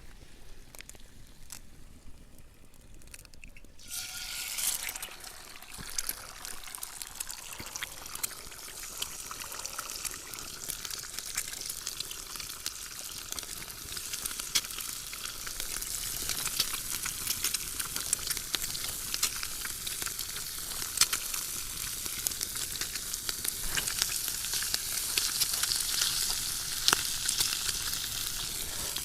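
Food sizzling in hot oil in a frying pan. It starts about four seconds in as the food goes into the pan and grows gradually louder, with many small spattering pops.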